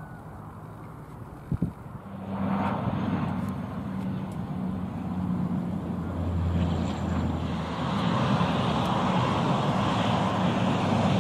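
A high-wing light aircraft's piston engine hums steadily for the first second and a half. Then, after an abrupt change, a twin-turboprop airliner passes low, its propellers and engines growing steadily louder.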